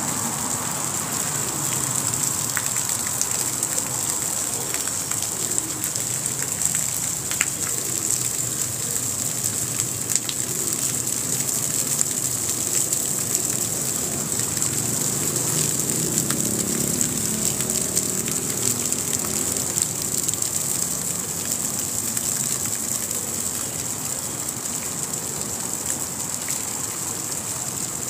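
Small ornamental park fountain splashing steadily into its basin, a continuous hissing gush of falling water.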